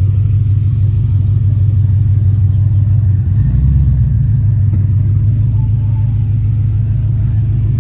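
Chevrolet Monte Carlo SS V8 running as the car rolls slowly away, a loud, steady low rumble. A deeper note comes in briefly a little after three seconds.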